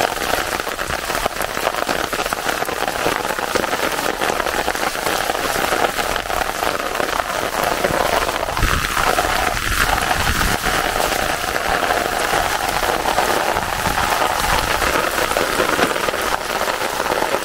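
Heavy rain pouring onto a river's surface, a steady dense hiss of countless drops.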